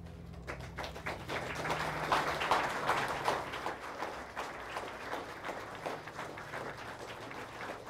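Crowd applauding. The clapping builds up about half a second in, is loudest after two to three seconds, then slowly thins out.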